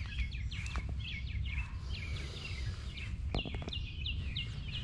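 Small birds chirping over and over, many short falling chirps several times a second, over a steady low rumble. A few sharp clicks about three and a half seconds in.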